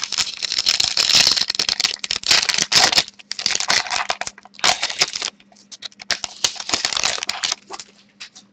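Foil wrapper of a hockey-card pack being torn open and crinkled, in crackly stretches that die away about seven and a half seconds in. A faint steady electrical hum runs underneath.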